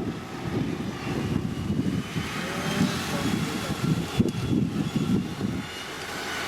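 Heavy diesel road-construction machinery running with a steady low engine rumble, with one sharp knock about four seconds in.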